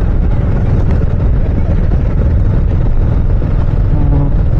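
Royal Enfield Meteor 350's single-cylinder engine running while the motorcycle is ridden, under steady loud wind and road rumble on the microphone.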